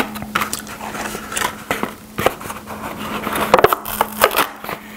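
Instant-noodle cup being handled and its lid picked at and peeled, a run of quick crackles and clicks, busiest about three and a half to four and a half seconds in. A low steady hum runs underneath.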